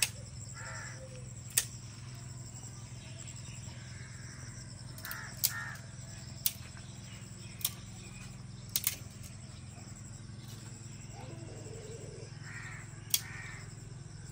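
A few short bird calls, some in pairs, over a steady low hum, with sharp clicks scattered every second or two.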